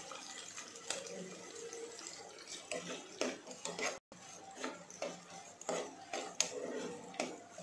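A spatula scraping and clicking against a nonstick pot as chopped onions are stirred in oil, over a steady sizzling hiss.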